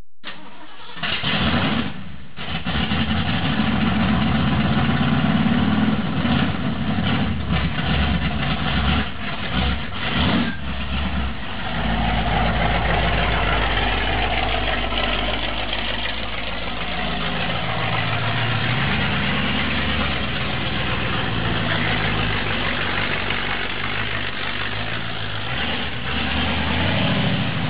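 1957 Ford F100 pickup's engine starting about a second in, then running steadily as the truck pulls out and drives away.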